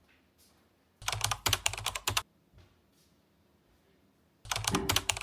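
Fast typing on a computer keyboard: two runs of rapid key clicks, one about a second in lasting just over a second, and another starting near the end.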